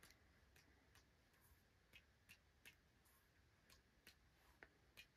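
Near silence with faint, irregularly spaced soft ticks, about a dozen, from a paintbrush tapped against fingers to spatter distress ink droplets.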